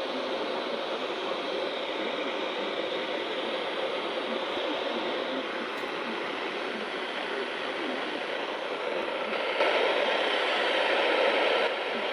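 Steady radio static hiss from a receiver, with a louder stretch of hiss lasting about two seconds near the end.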